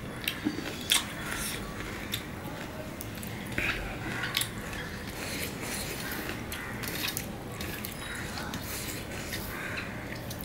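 Wet, crackly squishing of shredded pomelo pulp being kneaded and mixed by hand on a steel plate, with a few sharp clicks in the first half, the loudest about a second in.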